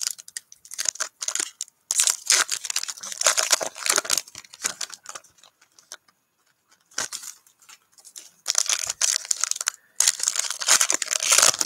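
Wrapper of a Panini NBA Hoops trading-card pack crinkling and tearing as it is ripped open by hand. It comes in several bouts of rustling, with a quiet pause in the middle.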